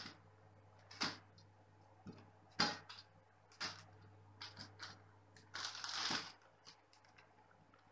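Clear plastic zipper bag crinkling in short, irregular rustles as raw tomato pieces are dropped into it, with a longer crinkle about six seconds in as the zip closure is pressed shut.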